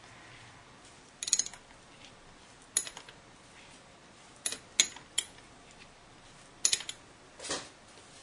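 Metal spanner on the brass fill-valve nut of an airgun regulator body being tightened: about six sharp metallic clicks and clinks, irregularly spaced, as the spanner is set on and turned.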